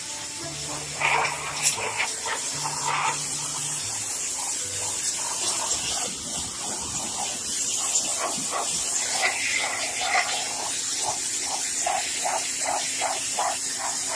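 Steady hiss of water spraying from an electric pressure washer's wand. Near the end there is a run of short regular pulses, about two a second.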